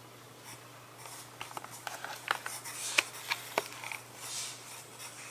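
Pencil writing on a paper sketch pad: short scratchy strokes with a few sharp ticks of the lead on the paper, busiest from about a second in to about four seconds in.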